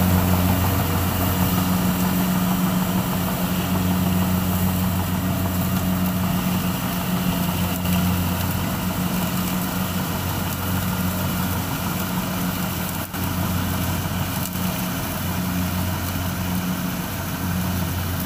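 Kubota DC-70 rice combine harvester's diesel engine running steadily, a continuous low drone.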